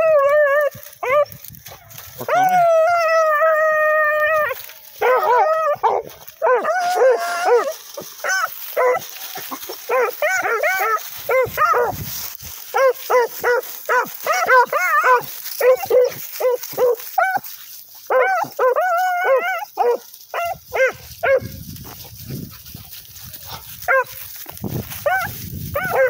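Rabbit hounds baying on a rabbit track. About two seconds in there is one long drawn-out bawl, followed by a long run of quick, rapid chop barks that thins out near the end.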